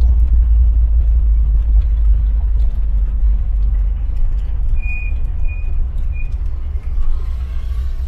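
Volkswagen Kombi van driving slowly through town, a steady low road-and-engine rumble. Three short high-pitched chirps come about five to six seconds in.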